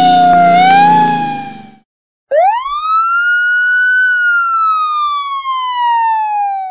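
A fire engine siren slides down in pitch and cuts off about two seconds in. After a short gap a police car siren wails once: it rises quickly, then falls slowly in one long sweep.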